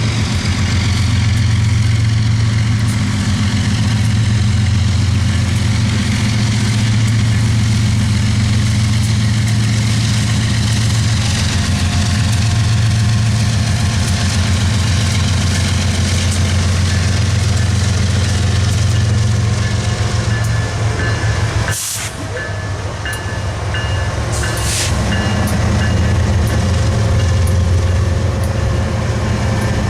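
BNSF 7390 diesel locomotive's engine running with a loud, steady low drone. About 22 seconds in the sound briefly drops away with a sharp click, and a short hiss follows a few seconds later.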